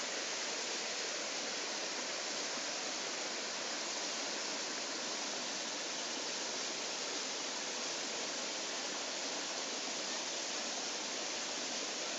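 Small waterfall and rocky stream rushing steadily, an even hiss of falling water.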